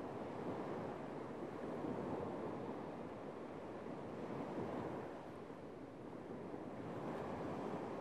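Small sea waves breaking and washing up a sandy beach: a steady rushing surf that eases slightly past the middle and swells again near the end.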